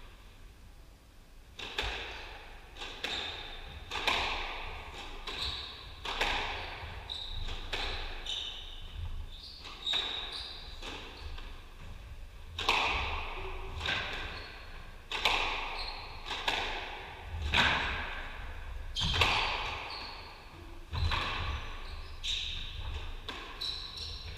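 A squash rally: the ball cracking off rackets and the court walls, each hit ringing in the enclosed court. The hits start about two seconds in and come irregularly, about one every half second to a second and a half.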